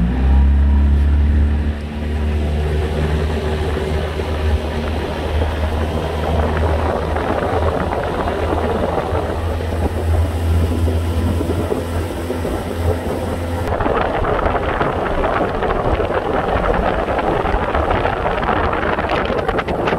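Small fishing boat's motor running under way, its pitch rising as it speeds up at the start, then settling into a steady drone with a rushing of wind and water. About fourteen seconds in, the rushing noise grows much louder while the engine hum recedes.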